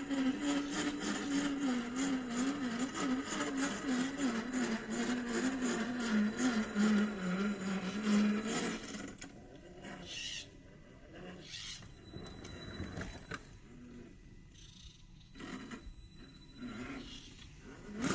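Brushed 550 electric motor and gear drivetrain of an RC rock crawler whining under throttle, its pitch wavering and sagging slightly for about nine seconds. It then drops quieter to short, stop-start bursts of motor as the crawler inches over ice.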